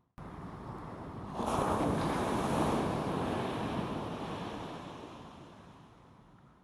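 Sea waves on the shore: a wave breaks with a rush about a second and a half in, and its wash slowly fades away.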